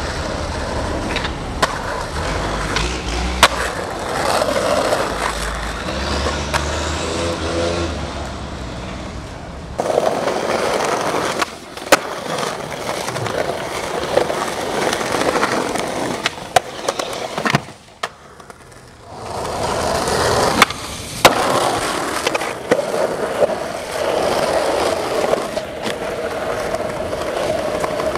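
Skateboard wheels rolling over rough street pavement in a steady grinding rush, broken by sharp clacks of the board hitting the ground several times.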